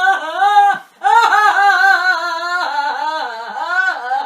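A person's high-pitched, wordless voice in long, wavering sung notes, breaking off briefly about a second in.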